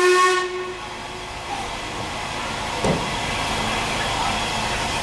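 Steam locomotive whistle, one pitched tone, cutting off about half a second in, then the steady hiss of steam from the working locomotive, with a single thump about three seconds in.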